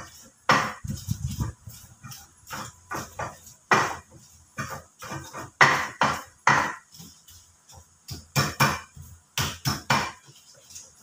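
Pestle knocking and grinding in a stone mortar (cobek and ulekan), crushing chillies and tomatoes: a rapid, irregular run of hard knocks, about two a second.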